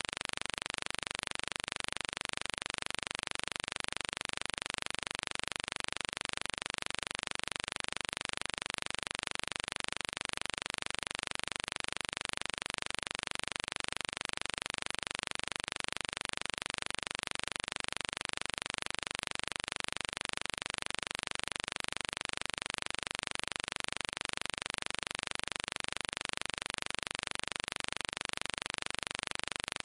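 A steady, even hiss that never changes, with no separate sounds in it.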